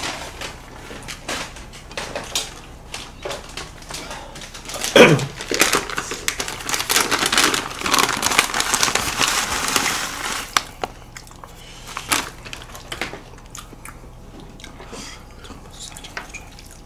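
Crumbled seasoned laver (gim flakes) being shaken out of a packet into a bowl of rice: a dense rustling and crackling for a few seconds in the middle, with scattered clicks of dishes and cutlery around it. A short falling-pitch squeal about five seconds in is the loudest sound.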